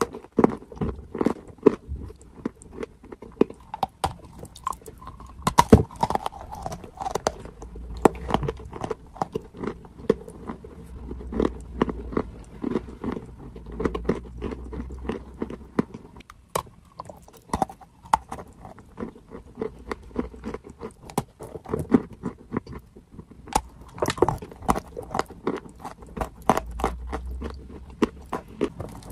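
Close-miked biting and chewing of a chunk of dry clay: a dense run of sharp crunches and crackles, easing briefly a little past halfway and then picking up again.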